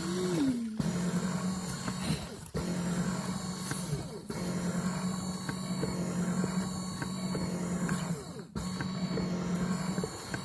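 Electric foot massager's motor and kneading nodes running, heard from inside the machine: a steady mechanical hum with a few brief breaks.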